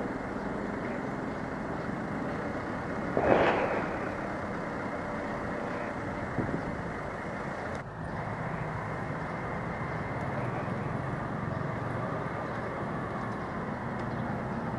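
Steady street traffic noise, with one brief louder swell about three seconds in.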